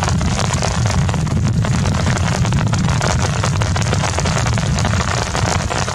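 Heavy rain falling, a steady hiss full of fine ticks, with wind buffeting the microphone as a constant low rumble underneath.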